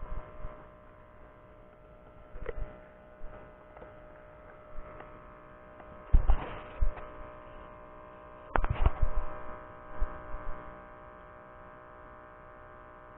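A steady electrical hum with a buzzy edge, broken by a few low knocks and thumps, the loudest cluster about six seconds in and another near nine seconds.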